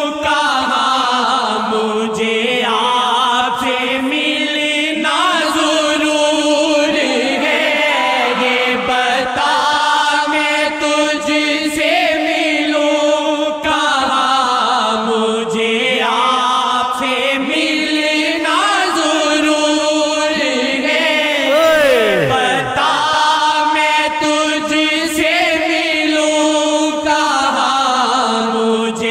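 Chanted singing of an Urdu Hamd, a devotional hymn in praise of God, in long wavering phrases that bend up and down in pitch.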